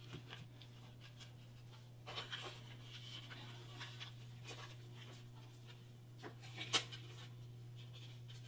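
Hands pressing and crimping soft dough on parchment paper over a metal baking sheet: faint rustling of the paper and small soft taps, the sharpest about three quarters of the way through, over a steady low hum.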